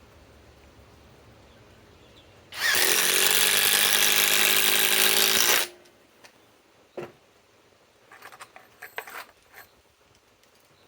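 Cordless compact impact driver hammering a 4-inch Grip-Rite screw into wood for about three seconds, then stopping abruptly. A knock and a few light clicks follow.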